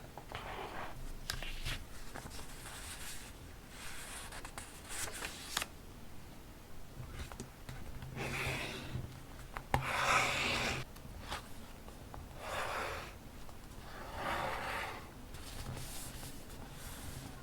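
Paper being handled: a series of short rustles and rubs, the loudest about ten seconds in, with a sharp click just before it.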